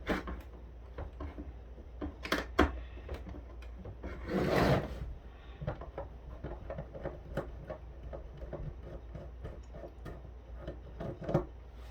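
A screwdriver working a tight screw out of a plastic phone housing, with scattered clicks, rubbing and handling of the plastic parts, and one louder scrape about four and a half seconds in.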